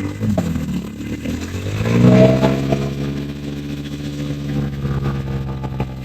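150 cc motorcycle engine revving up, its pitch climbing to a peak about two seconds in, then running steadily at a lower, even pitch.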